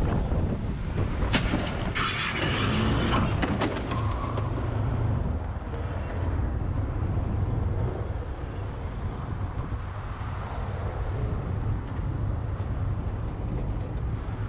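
A motorcycle running in traffic, heard through a helmet camera as a steady low engine and wind noise. There is a burst of clattering between about two and four seconds in.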